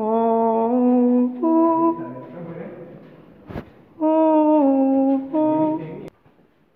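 A person humming a tune close to the microphone, in two short phrases of held notes stepping up and down in pitch, about two seconds apart. A sharp click sounds between the phrases.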